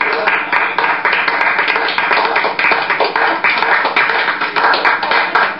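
Applause, many hands clapping, with music playing underneath.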